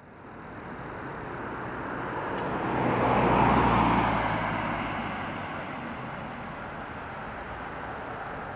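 A car passing by on an asphalt road: its tyre and engine noise swells to a peak about three and a half seconds in, then fades as it drives away.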